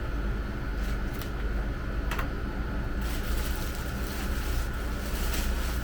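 Packaging rustling and crinkling as parts are lifted out of a box, with a few sharp clicks in the first two seconds and denser rustling from about halfway, over a steady low hum.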